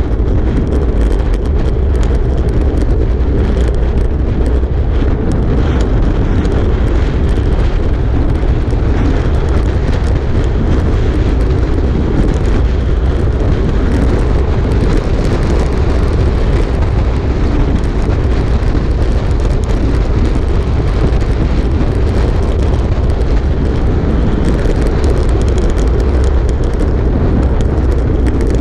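Wind buffeting a handlebar-mounted GoPro Hero5 Black's microphone while a road bike descends at around 26 to 34 mph: a steady, deep rushing noise.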